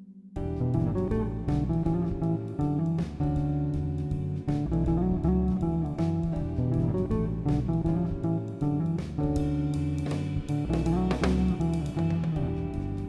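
Background music: a plucked guitar track with a bass line, starting about half a second in after a soft sustained tone fades out.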